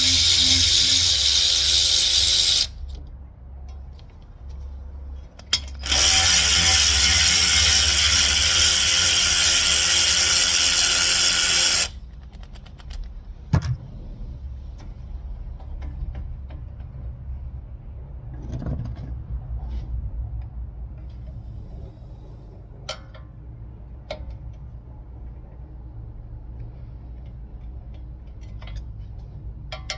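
Handheld power tool running in two long steady runs, the first about three seconds and the second about six seconds. After that come scattered quieter clicks and knocks of metal.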